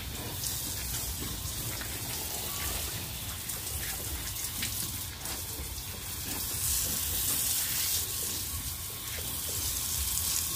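Water spraying from a garden hose nozzle onto a sow and the wet concrete pen floor: a steady hiss of spray with splashing, a little louder toward the middle.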